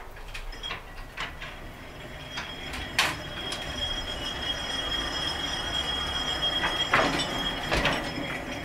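Small electric locomotive running on narrow-gauge track, growing louder as it approaches. A steady high-pitched whine comes in about three seconds in, over scattered sharp clicks and knocks from the wheels on the rails, the loudest about three seconds in and more near the end.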